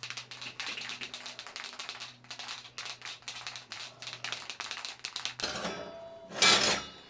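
Rapid, irregular light clicks and taps over a steady low hum, then a louder, rough scraping burst near the end.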